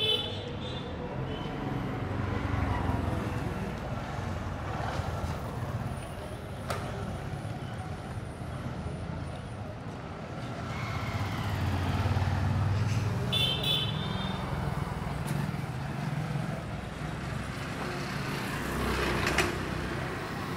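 Busy street traffic: motor vehicles passing with a low engine rumble that swells and fades twice. A short, high vehicle horn toots at the start and again about two-thirds of the way through.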